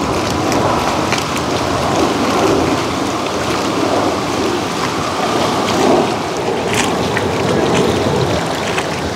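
Steady rushing noise of strong wind and choppy lake water, with a few faint clicks about six and seven seconds in.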